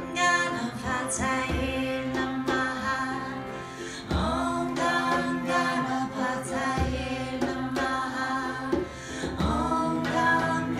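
Female voice singing a devotional chant to Ganesh over a sustained harmonium drone, with ukulele and a hand-held frame drum giving a deep stroke about every two and a half seconds.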